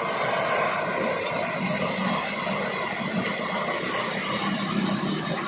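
Gas blowtorch burning steadily with a constant rushing noise that does not change.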